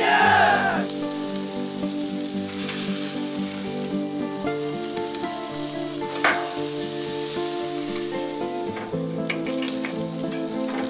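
Kebabs and sausages sizzling on a gas barbecue grill: a steady hiss, with background music of held chords over it. A single sharp click about six seconds in as the skewers are turned.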